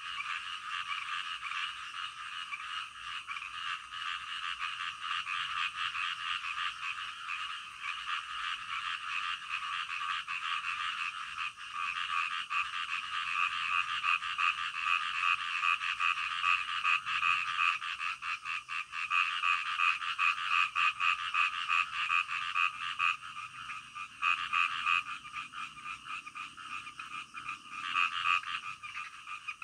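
Chorus of many frogs calling at once, their rapid pulsed croaks overlapping into one continuous sound. It grows fuller about twelve seconds in and thins briefly a few times near the end.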